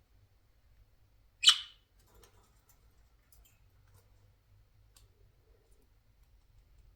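A budgerigar gives one short, harsh, loud squawk about a second and a half in. Faint small clicks and ticks are scattered around it.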